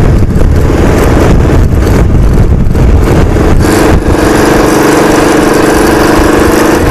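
Motorcycle riding at road speed: its engine running under strong, uneven wind noise on the microphone. From about four seconds in, a steady engine hum comes through more clearly.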